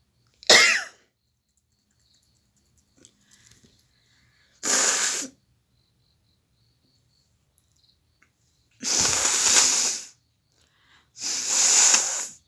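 A woman sneezes once, a short sharp voiced sneeze, then blows her nose hard three times, each blow lasting about a second.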